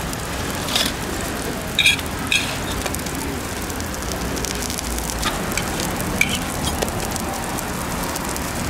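Sorghum hotteok frying in oil on a flat griddle, a steady sizzle. A few sharp metal clinks cut through it, the loudest about two seconds in, as steel disc presses are set down and pressed onto the pancakes.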